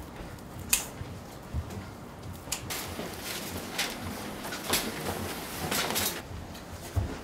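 Rustling and handling noise with about six sharp clicks and knocks scattered through it.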